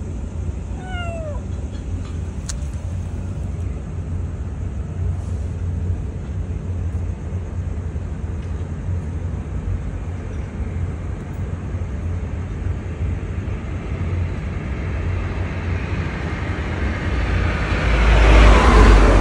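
A kitten mews once about a second in, a short cry falling in pitch, over a steady low rumble of road traffic. Near the end a passing car's rush swells and fades, the loudest sound.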